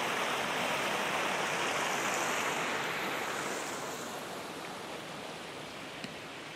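Steady rush of flowing water, easing off slightly about halfway through, with one faint click near the end.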